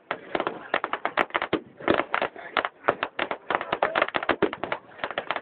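Fireworks popping and crackling in a rapid, irregular run of sharp bangs, about ten a second.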